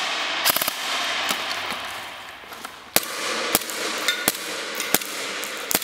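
Airsoft rifle firing: a quick burst of about four sharp shots half a second in, with a haze fading after it over the next two seconds, then about five single shots spaced a little under a second apart.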